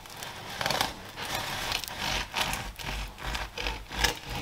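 Knife sawing back and forth through the crisp crust of a still-warm pumpkin loaf: repeated rasping strokes, about three a second in the second half.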